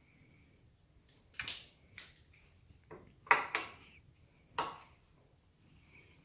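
A handful of sharp clicks and knocks from hard parts and tools being handled while the scooter is reassembled, about six in three seconds, with the loudest in the middle.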